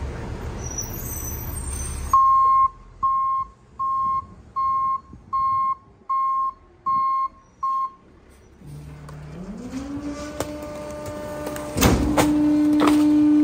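Garbage truck backup alarm beeping eight times, evenly spaced, over the low rumble of the truck's engine. Then the engine speeds up, a hum rising in pitch and holding steady, and a sharp thud about twelve seconds in as a trash bag lands in the rear hopper.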